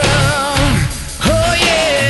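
Hard rock song playing: a full band with drums and bass under a held, wavering melody line that slides up in pitch about halfway through.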